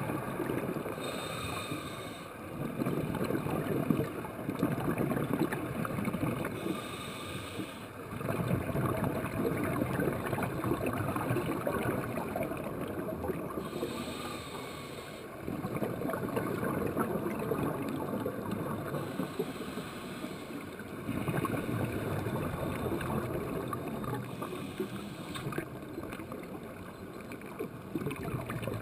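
A scuba diver's breathing heard underwater through the camera housing: exhaled bubbles from the regulator rumble and gurgle in long rushes about every six seconds, with short quieter pauses between breaths.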